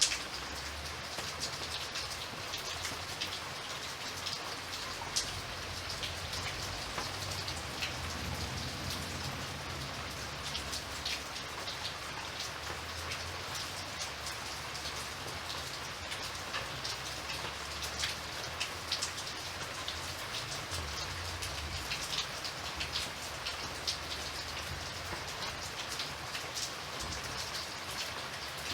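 Steady rain falling, with many small drop ticks over a constant hiss and a faint low rumble.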